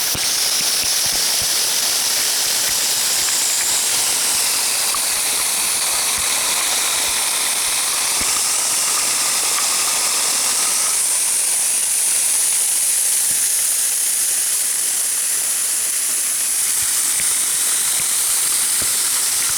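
Water running steadily from a waterfall shower, a continuous loud hiss whose tone slowly shifts.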